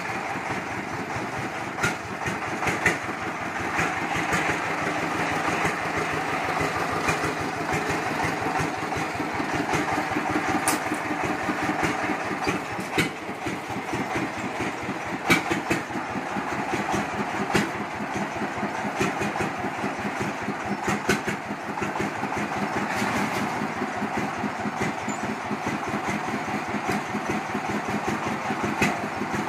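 Horizontal single-cylinder diesel engine of a công nông running with a steady, fast chugging beat, with a few sharp clicks standing out over it.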